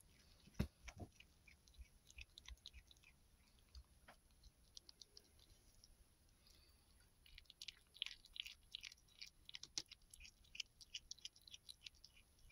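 Nine-week-old kitten chewing a mouse: faint, quick clicks of teeth on flesh and bone. The clicks come more often in the second half.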